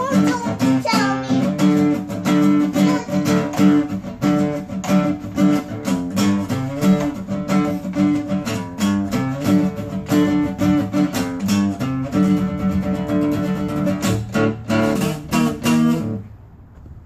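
Acoustic guitar strummed in a fast, steady rhythm, with a child's singing fading out in the first second or so. The playing stops suddenly near the end.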